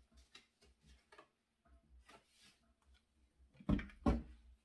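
Paper rustling and small clicks as an envelope is opened and the letter inside is handled, then two dull knocks close together near the end.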